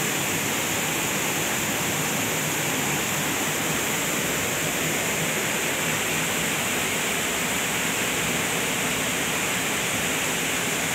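Waterfall rushing steadily, an even hiss of falling water that does not change.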